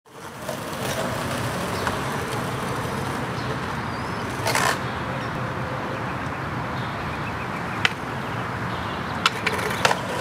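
Steady outdoor street noise, with a brief knock about four and a half seconds in and a few sharp clacks near the end, fitting a skateboard's wheels and tail on asphalt.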